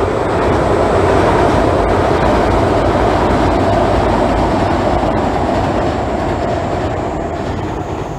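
289 series limited express electric train running over a steel girder railway bridge: a steady, loud rumble of wheels on rails that eases off slightly near the end as the train passes.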